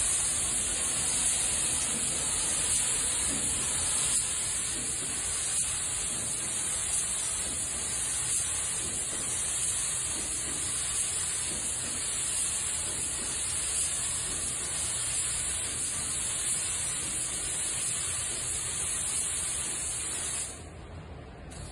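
Compressed-air gravity-feed paint spray gun spraying a full wet coat of metallic paint, a steady high hiss of air and atomised paint. The hiss drops away sharply near the end.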